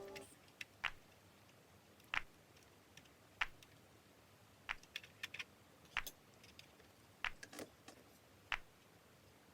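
Sharp clicks and taps of small plastic model parts and tools being handled, one about every second, some in quick pairs.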